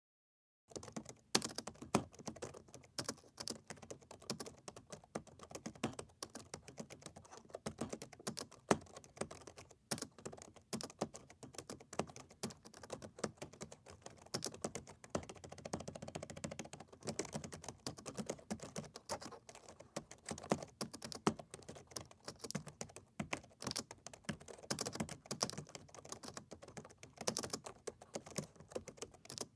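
Typing on a laptop keyboard: a fast, continuous run of key clicks, several a second, with an occasional louder stroke. The typing starts just under a second in.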